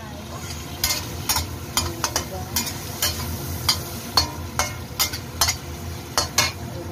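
Metal spatula clinking and scraping against a steel wok about twice a second, stirring shrimp that are frying in butter sauce, over a steady sizzle.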